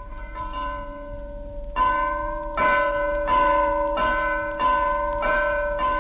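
Church bell ringing in repeated strokes, about one and a half a second, each stroke ringing on into the next; the strokes grow much louder about two seconds in.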